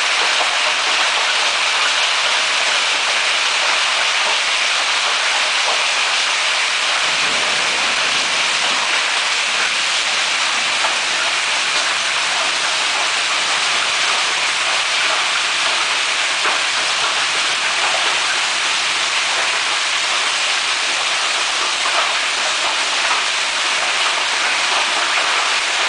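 Heavy golf-ball-size hail pelting down in a dense, steady clatter, striking the patio and boat dock, with a few sharper single hits standing out.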